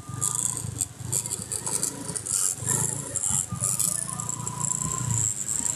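Irregular scuffing and rustling of footsteps and a handheld phone being carried while walking.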